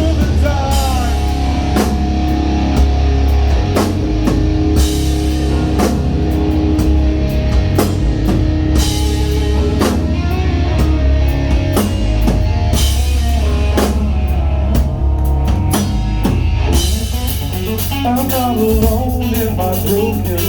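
Live rock band playing an instrumental passage: drum kit, distorted guitars and heavy bass, recorded loud on a phone in a club.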